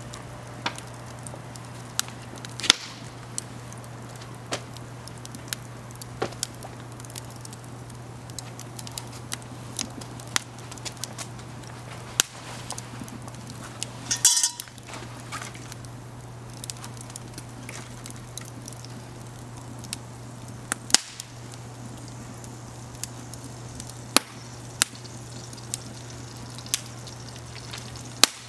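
Wood fire crackling and popping under a cast-iron pot, with sharp irregular pops throughout. About halfway through there is a brief louder clatter as the pot is handled.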